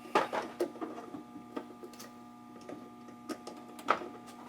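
Irregular clicks and light knocks of electrical parts and hand tools being handled as a wired-up outlet and switch setup is taken apart, over a faint steady hum.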